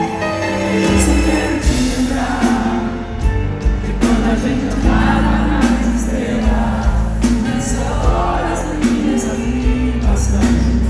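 Live concert performance of a pop ballad: the full band comes in about a second in with heavy bass and drums, under singing.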